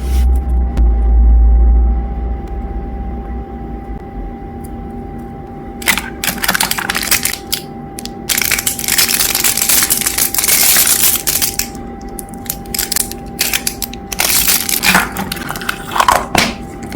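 Plastic being handled, crinkling and crunching in irregular bursts of crackles and clicks over a faint steady hum, with a low thump about a second in.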